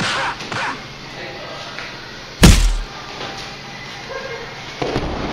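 Sparring fighters grappling: a couple of hits at the start, one very loud heavy thud about two and a half seconds in, and more blows near the end.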